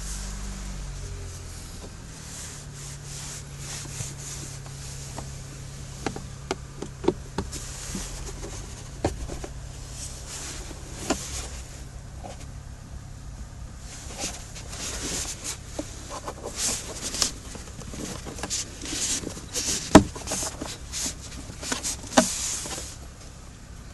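Plastic clicks, snaps and rustling from handling the glove box and cabin air filter housing of a Kia Grand Carnival, over a steady low hum. The handling grows busier in the second half, and the sharpest snap comes about twenty seconds in.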